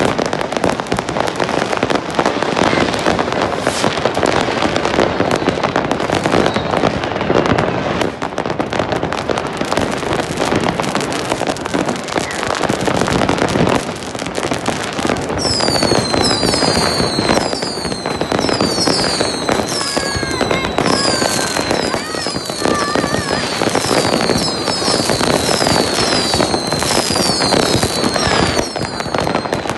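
Many fireworks rockets and firecrackers going off at once, a dense continuous crackling and popping. From about halfway, many short high whistles falling in pitch come in on top.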